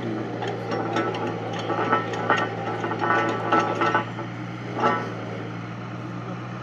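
Borewell drilling rig's engine running steadily, with a run of metallic clinks and clanks as drill pipe is handled at the rig over the first four seconds or so, and one more clank about five seconds in.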